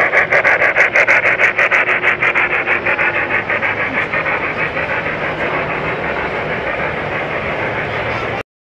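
Large-scale model steam locomotive running past with its steam sound effect: a fast, even chuffing of about six beats a second that fades as the locomotive moves away, over a steady running rumble of the passing train. The sound cuts off suddenly near the end.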